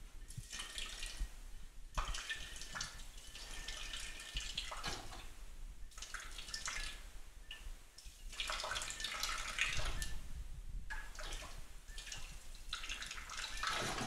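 Stream of urine splashing into an empty ceramic chamber pot, coming in several spurts with short breaks between them.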